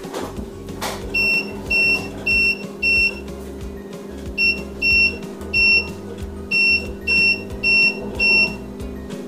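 Air fryer touch control panel beeping with each tap as the cooking time is set: a string of short, high beeps, about two a second, with a pause about three seconds in, over a steady low hum.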